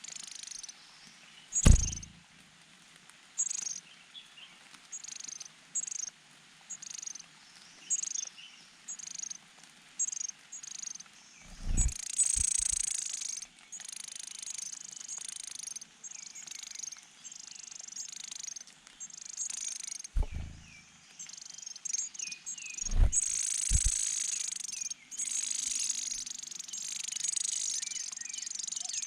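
Leaf warbler nestlings giving thin, high chirps, one every second or so at first, swelling into a dense chorus of calling about twelve seconds in and again near the end. Several low thumps break in, the loudest about two seconds in.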